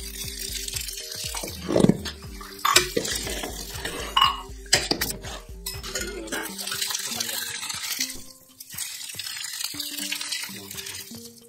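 Metal ladle clinking and scraping against a large aluminium cooking pot as oily tempering is poured onto cooked rice and stirred through it, with a few sharp clinks in the first half.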